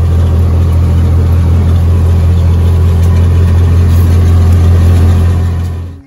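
Vehicle engine running at a steady pace while driving over rough field ground, a constant low drone with a rushing noise over it. It fades out near the end.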